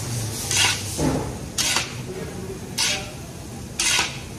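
Long metal ladle stirring diced carrots and green beans in a large kadai, scraping across the pan in four short strokes about a second apart.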